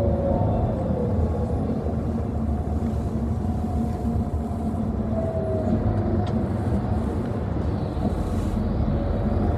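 City bus on the move, heard from inside: a steady low rumble of engine and road noise, with a faint whine that comes and goes and glides up and down in pitch.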